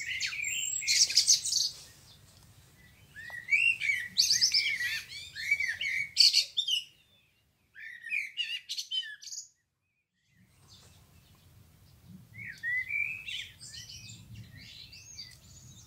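Dawn chorus of songbirds: bouts of quick chirps and warbling phrases with short pauses between them, dropping out completely twice near the middle.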